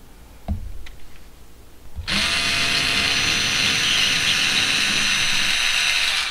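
A light knock, then a Bauer 4V cordless screwdriver's motor runs steadily for about four seconds, backing a screw out of drywall, and stops abruptly.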